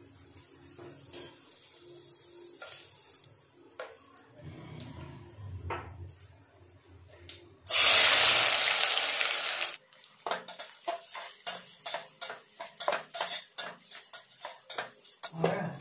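Cumin seeds crackling faintly in hot oil in a metal pot, then chopped onion tipped into the oil about eight seconds in, setting off a loud sizzle that lasts about two seconds. After that a spatula stirs the onions, scraping and clicking against the pot several times a second.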